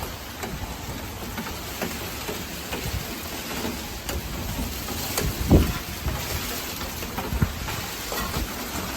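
Steady hiss of tropical-storm rain, with scattered drops ticking on nearby surfaces. A dull thump about halfway through.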